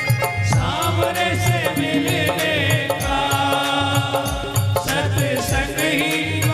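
Hindi devotional bhajan music: an instrumental passage, a wavering melody line over a steady repeating drum beat.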